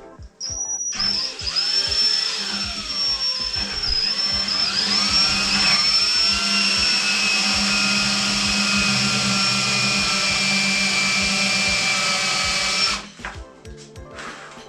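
Power drill with a large bit boring a hole in a mountainboard deck for a threaded insert. The motor whines steadily and its pitch sags twice as the bit bites under load, then it holds and stops suddenly near the end.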